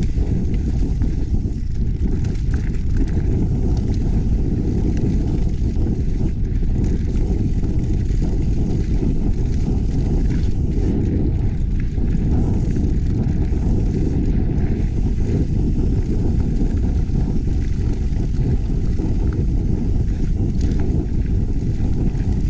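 Mountain bike riding fast down a dirt trail: a steady low rush of wind on the GoPro's microphone mixed with tyre noise, with an occasional faint knock.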